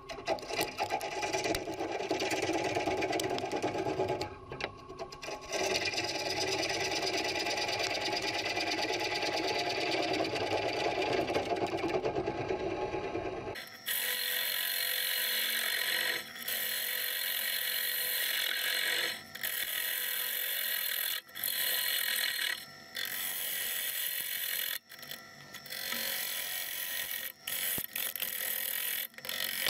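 Woodturning gouge cutting the inside of a spinning wooden bowl on a lathe, a continuous scraping hiss of the cut. About halfway through the sound turns thinner and higher, and is broken by short gaps as the tool comes off the wood.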